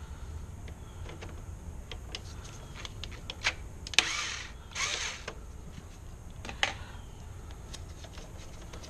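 Scattered small clicks and taps from hands working breakers and wiring in an electrical panel, with a sharper click about four seconds in, followed by two short swishes.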